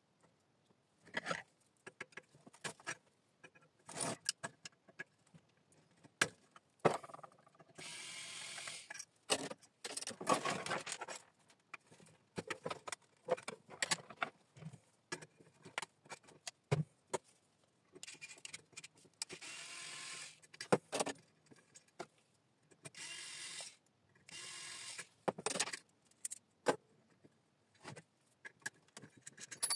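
Metal parts of a three-phase electricity meter being handled and taken apart: scattered clicks and knocks, with four steady whirring or scraping stretches of a second or two each.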